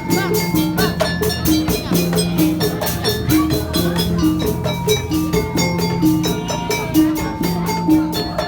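Obrog street-music ensemble playing live: a fast, steady rhythm of many percussion strokes a second under a short repeating two-note figure and a lower held note.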